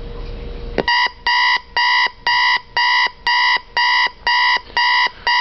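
Electronic wake-up alarm beeping: a high, steady electronic beep repeated about twice a second, starting just under a second in, sounding to wake a sleeper.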